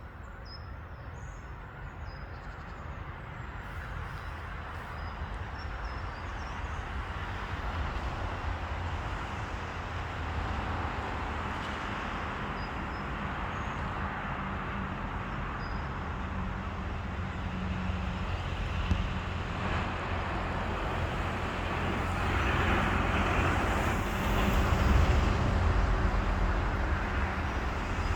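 Motor vehicle engine and road noise growing steadily louder, a low rumble with a faint steady hum. A few faint bird chirps come in the first few seconds.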